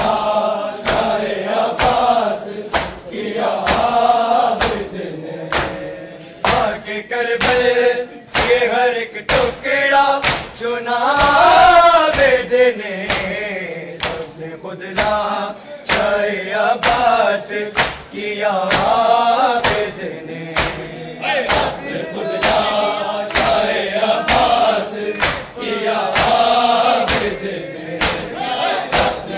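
A group of men chanting a noha, an Urdu Shia lament, in chorus, over the sharp, evenly timed slaps of many bare-chested mourners beating their chests (matam) in unison.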